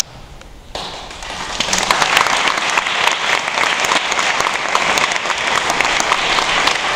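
Audience applauding, starting about a second in and swelling quickly to steady clapping from many hands.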